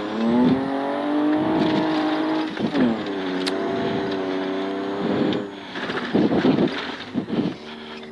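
Rally car's engine heard from inside the cabin, accelerating hard on a gravel stage: the revs climb, drop sharply with an upshift about three seconds in, and climb again. About six seconds in the throttle lifts and the engine falls to a lower, uneven note.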